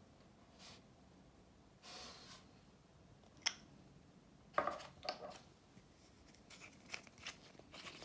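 Faint handling noise of small craft items: a soft swish, a sharp click, a short cluster of rustling taps about halfway, and several light clicks near the end.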